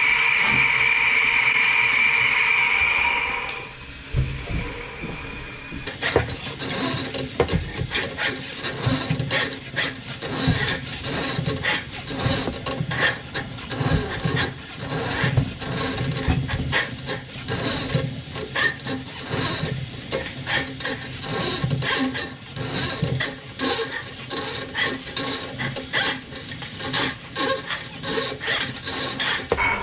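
Electric Eel drum drain machine running with its cable drum spinning, a steady whine that stops about three and a half seconds in. From about six seconds in, the coiled steel drain cable scrapes and clicks irregularly against the rim of a cast-iron sewer cleanout as it is pulled back out of the line.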